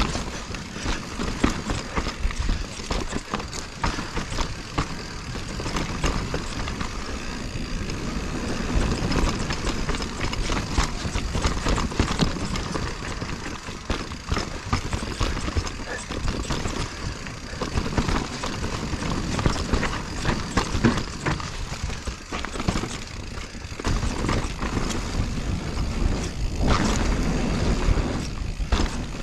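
Mountain bike riding down a dirt trail: tyres rolling over dirt and the bike rattling and clattering over bumps, with wind buffeting the chest-mounted camera's microphone.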